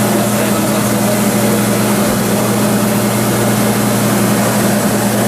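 Kekeisen UBF 3000/15 bed milling machine running, a loud steady mechanical hum with a constant low drone and an even whir above it.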